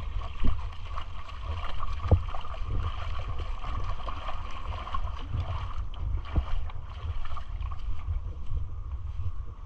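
Wind rumbling on the microphone over the steady wash of shallow sea water on the shore, with a few soft knocks.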